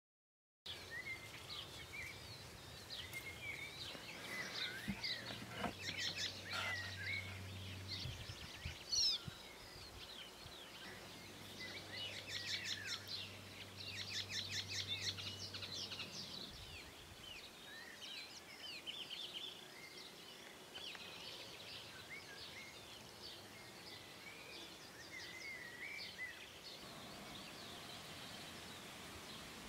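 Several small songbirds singing and chirping, with many short sliding notes and trills over a faint steady hiss. A low steady hum runs under them for about the first half and stops about sixteen seconds in.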